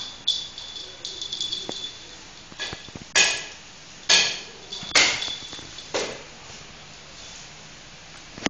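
Dachshund tearing and gnawing at a coconut with its teeth: a run of short ripping and scraping sounds, about seven of them, thinning out after about six seconds.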